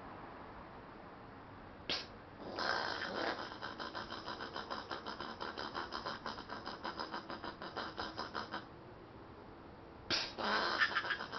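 Angry Australian possum calling: a short sharp burst about two seconds in, then a rapid pulsing call of about five pulses a second lasting some six seconds, and another harsh burst near the end.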